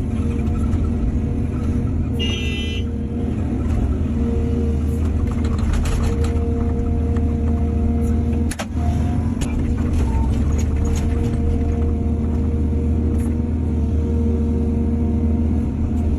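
Excavator's diesel engine running steadily under load with a hydraulic whine, with scattered knocks and scrapes as it works the soil and a short squeal about two seconds in.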